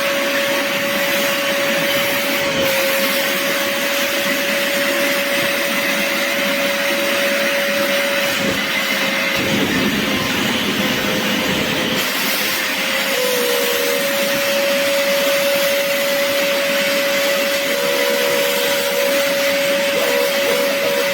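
BISSELL Little Green portable upholstery cleaner running with a steady motor whine and suction rush. The whine dips and wavers a few times, with a rougher, lower rush for a few seconds about nine seconds in.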